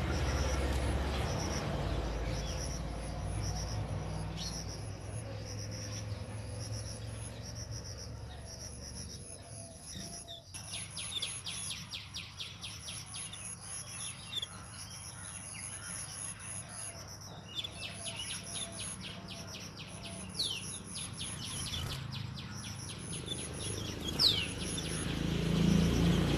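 Nestling songbirds begging with a few short, thin chirps scattered through, over a steady, high-pitched insect trill. A low rumble comes at the start and again near the end.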